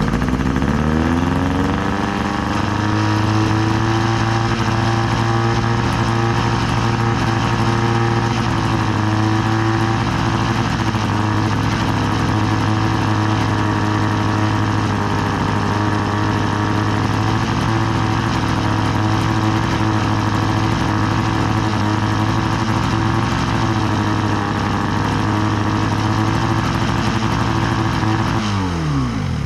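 Two-stroke outboard motor, freshly started after sitting over a year, settling from higher revs down to a steady idle over the first couple of seconds. It runs evenly until it is shut off near the end, its pitch falling quickly as it winds down.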